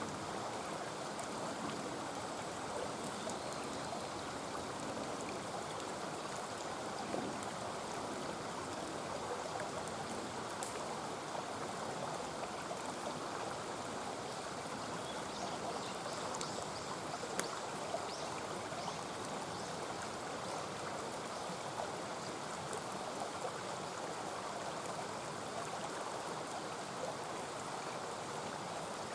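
Mountain stream running steadily, with a few sharp pops from a wood campfire, the loudest about 17 seconds in.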